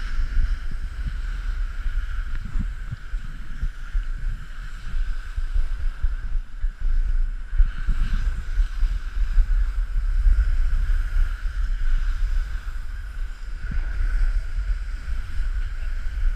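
Wind rushing over an action camera's microphone during a downhill snowboard run, with a steady hiss from the board sliding over packed snow.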